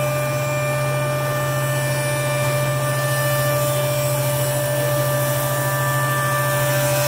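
Powermatic 54HH 6-inch jointer's motor and helical cutterhead spinning freely, not cutting. It makes a steady low hum with a thin, constant high whine over it.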